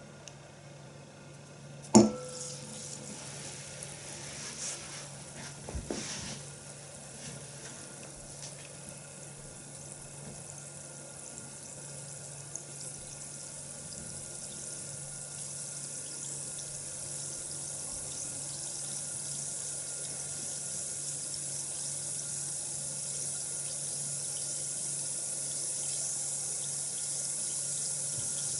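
Water running from a tap into a basin, a steady hiss that grows slowly louder. A sharp knock comes about two seconds in, and a smaller one about four seconds later.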